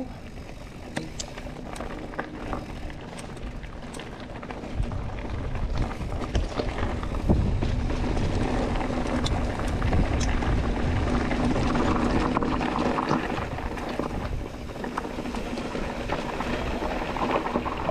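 Mountain bike rolling down a dirt trail: a steady rumble of tyres on dirt and rock with scattered rattles and clicks from the bike, growing louder about five seconds in as speed picks up.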